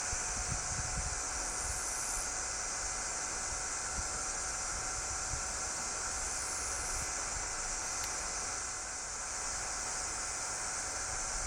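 Outdoor ambience: a steady high hiss with wind buffeting the microphone in low rumbles, strongest in the first second or so. No kingfisher call stands out.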